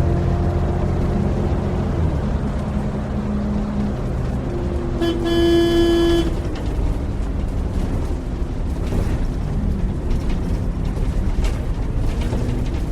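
Bus engine running with a steady low rumble, and a vehicle horn sounding once for about a second, about five seconds in.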